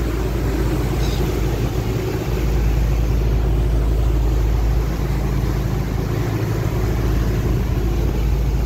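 Steady low rumble of a passenger ferry under way, its engine and the wind on the phone's microphone on the open deck mixing into one continuous noise.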